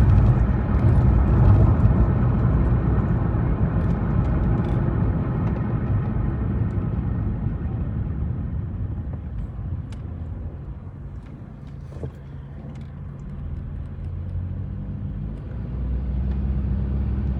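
Car driving: a steady road and engine rumble that eases off around the middle and builds again near the end with a steady low engine hum.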